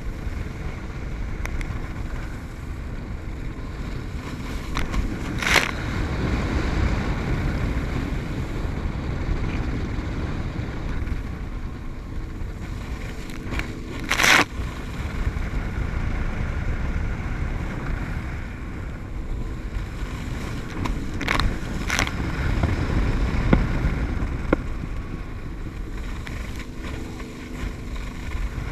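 Wind rushing over the microphone and water hissing under a water ski towed at speed behind a motorboat, with four sharp hits of spray or chop along the way.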